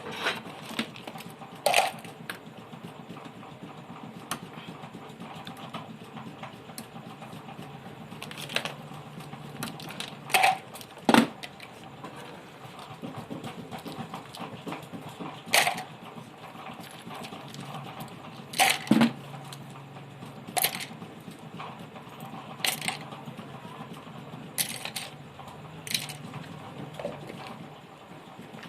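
Scattered sharp clicks and clinks of small tools and electronic parts being handled and set down on a repair bench, about a dozen over the stretch, over a low steady hum.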